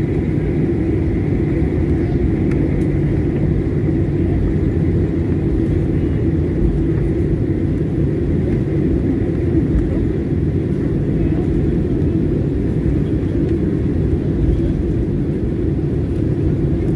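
Cabin noise inside a Boeing 737 MAX 9 taxiing: a steady low rumble from its CFM LEAP-1B engines at taxi power and the airliner rolling along the taxiway, with a faint high whine in the first few seconds.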